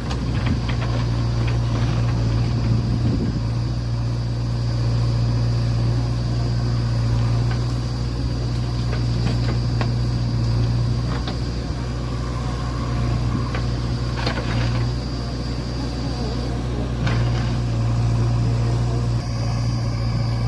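Heavy diesel engine running steadily with a deep hum. A few sharp metallic knocks or clanks occur, mostly in the second half.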